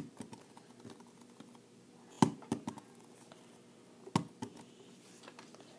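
A ball of Wonder Dough dough/putty is thrown down to bounce and hits the desk with a short knock, followed by a few more sharp knocks about two and about four seconds in, the loudest two seconds in.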